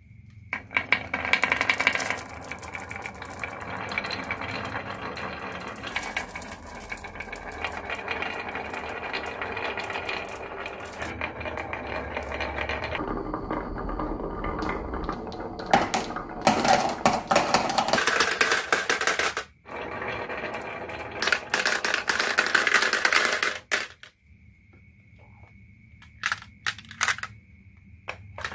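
Many marbles rolling and clattering down a marble run track, a dense rattle of clicks that stops suddenly twice, then a few last clicks near the end.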